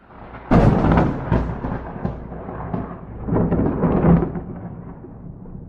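Thunder: a sharp clap about half a second in that rolls into a rumble, a second louder peal a few seconds later, then the rumble fading away.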